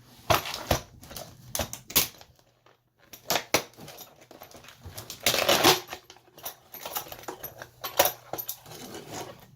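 A package of RC wheels being opened by hand: a string of sharp clicks and knocks from the box and its parts, with a longer rustle about five seconds in.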